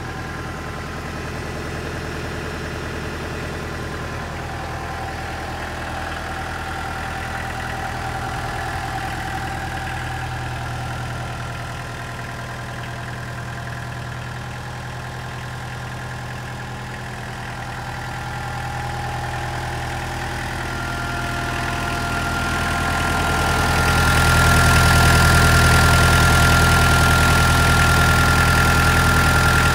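Kubota L-series compact tractor's diesel engine idling steadily. It grows louder and fuller near the end, heard close up at the engine compartment.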